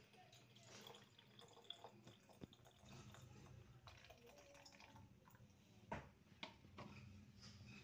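Faint trickle of water poured from a plastic bowl into a plastic bottle packed with green olives, topping them up for curing. A couple of light knocks about six seconds in, as the pouring ends.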